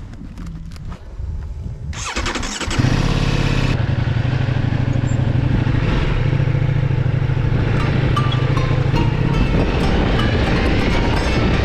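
Motorcycle engine starting about two seconds in, then running steadily at a constant speed.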